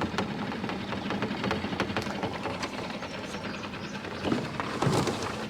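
Jon boat's outboard motor running steadily at low speed, with scattered clicks and knocks over the hum.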